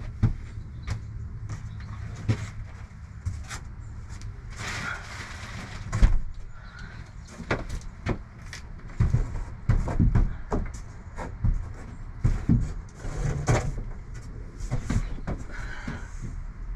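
Irregular knocks, clicks and clatters of hands-on work, with a burst of crinkling about five seconds in, as foil thermal insulation wrap is handled and put up on a shed roof; a steady low rumble lies underneath.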